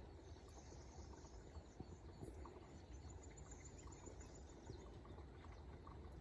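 Faint birds chirping, with a quick high trill about three seconds in, over a steady low rush of flowing stream water.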